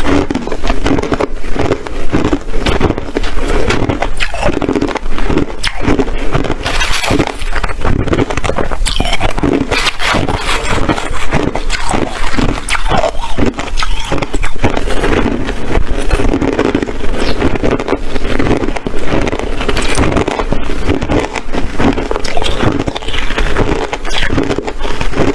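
A person chewing hard ice close to the microphone: continuous loud crunching, thick with sharp cracks.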